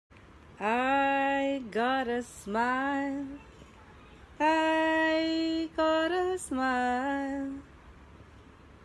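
A woman singing to a baby without clear words, in long held notes that slide into pitch: three short phrases, a pause, then three more.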